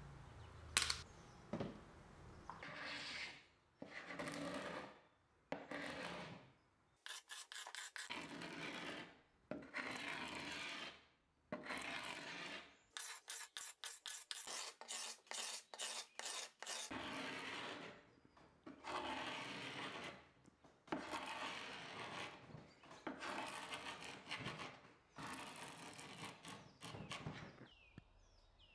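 Hand paint scraper scraping layers of yellow enamel and primer off a wooden dresser in repeated rasping strokes. Most strokes last about a second, with runs of quick short strokes in the middle.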